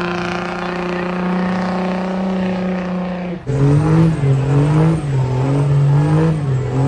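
A vehicle engine held at a steady high rev, its pitch sagging slightly. About three and a half seconds in, after a sudden change, an engine is revved up and down over and over, rising and falling about every two-thirds of a second.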